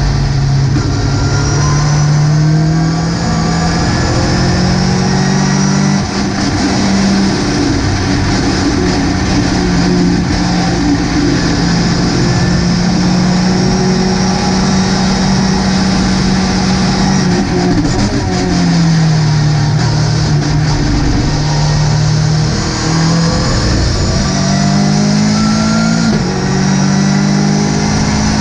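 Ginetta GT5 race car engine pulling hard at racing speed, with steps in pitch at gear changes. The revs fall away about two-thirds of the way through, then build again.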